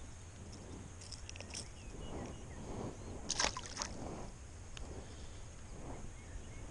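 Metal forceps and a hard plastic lure clicking as the treble hook is worked out of a perch's mouth, then a splash about three and a half seconds in as the perch is dropped back into the water.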